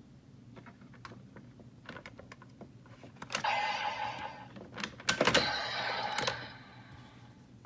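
Bandai Legendriver toy belt being operated: a series of light plastic clicks as cards and parts are handled and pressed. Then two bursts of electronic sound effects from the toy's speaker, each about a second long, the second louder and mixed with sharp clicks.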